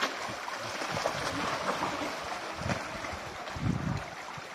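A crowd of fish splashing and churning the water at the surface as they are fed. Heavier splashes come about two and a half and three and a half seconds in.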